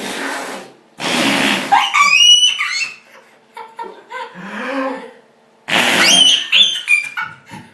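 A toddler blowing raspberries, spluttery mouth fart noises, three times, the last two each followed by high squealing laughter.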